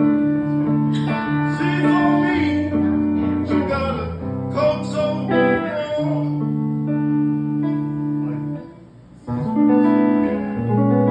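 Archtop guitar playing sustained, ringing chords, with a man singing over them for the first few seconds. The sound drops away briefly near the nine-second mark, then a fresh chord comes in.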